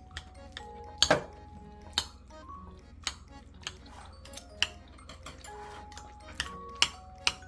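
Dishes and cutlery clinking and knocking in a string of sharp, irregular clinks, over soft background music.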